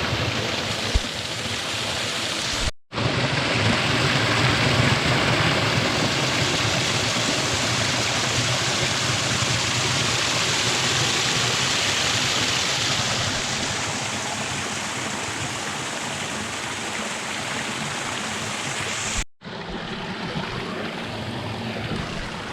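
Steady rushing of a mountain stream's water, a dense even hiss. It breaks off for an instant twice, about three seconds in and again near the end.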